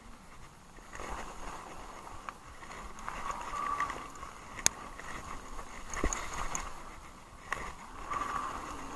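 Haibike Sduro electric mountain bike riding fast down a dirt forest trail: tyres running over packed dirt and leaves and the bike rattling. A sharp knock comes about four and a half seconds in, and a heavier thump about six seconds in.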